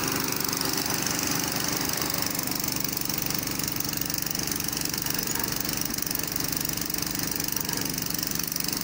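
Engine running steadily at an even speed: a constant drone with a steady hiss above it.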